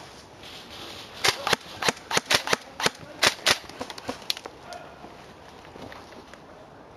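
Airsoft rifles firing single shots: about ten sharp snaps in two and a half seconds, then a few fainter ones.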